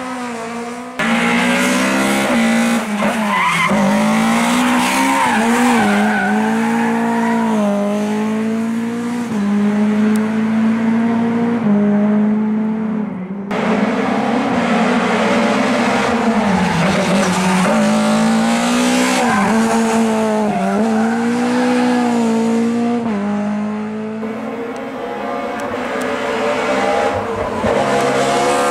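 Lada VFTS rally car's four-cylinder engine revving hard through a twisty stage. The pitch rises and falls over and over as the driver accelerates, lifts and shifts between bends.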